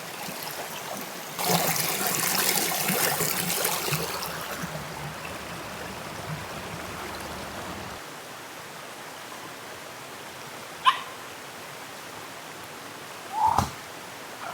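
A river running steadily, with a louder rush of noise from about a second and a half in that fades over a few seconds. Near the end a small dog, a Yorkshire terrier, gives two short high whimpers or yips, the second louder.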